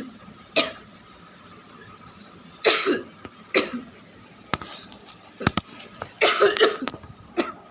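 A person coughing repeatedly in short, harsh bursts, with a quick cluster of coughs near the end. A few sharp clicks fall between the coughs around the middle.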